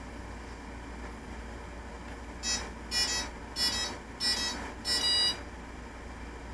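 Five short electronic beeps about two-thirds of a second apart from a HobbyKing Nova quadcopter, tones of the kind its electronics sound while powering up or arming.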